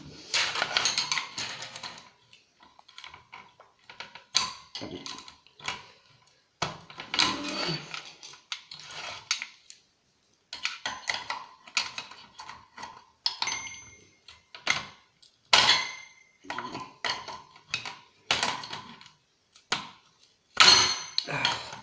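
Thin steel RF shield being pried and bent off a circuit board: irregular metallic scraping, clicks and clinks, some of them ringing briefly.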